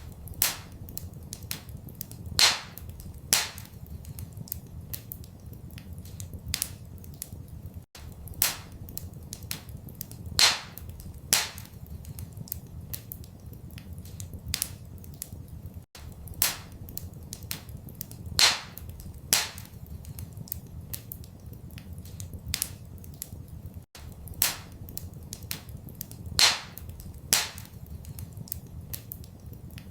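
Wood fire crackling, with irregular sharp pops, a few of them much louder, over a steady low rumble. The same eight-second stretch repeats as a loop, with a brief gap at each join.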